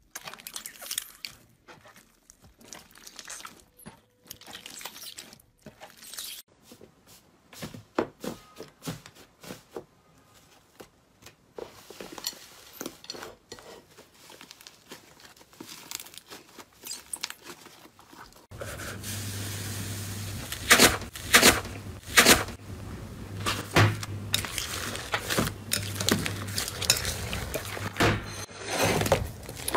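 Slime being pressed, squeezed and stretched by hand, giving a run of small sticky clicks and pops. About two-thirds of the way through, a steady low hum comes in and the clicks and pops become louder.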